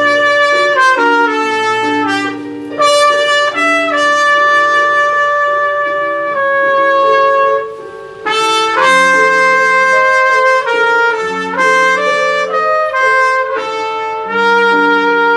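Trumpet playing a slow melody of held notes over an accompaniment of sustained bass notes and chords from a backing track, with a short break in the melody about eight seconds in.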